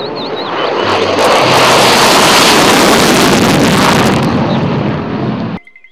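F-16 fighter jet taking off on afterburner: a loud, rushing jet roar that builds, holds and then cuts off suddenly near the end.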